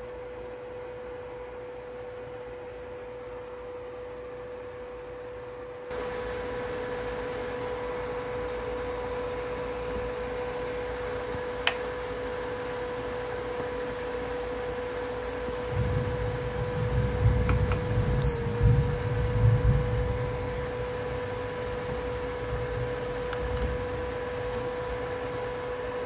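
Induction cooktop running with a steady electric hum. A sharp click comes near the middle, then a few seconds of low bumps and rumbling as a wooden spatula stirs the pot on it.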